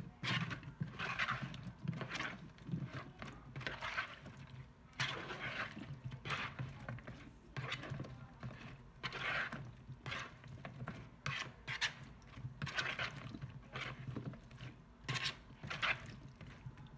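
A spoon stirring and tossing smashed green plums in their salty, watery seasoning in a bowl: irregular wet sloshing and scraping strokes, with a few sharper clicks of the spoon against the bowl near the end.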